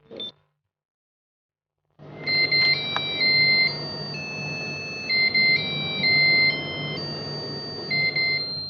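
LED message-board alarm clock playing its electronic alarm melody, a simple tune of stepping beep tones with a low buzz under it, starting about two seconds in after one short button beep.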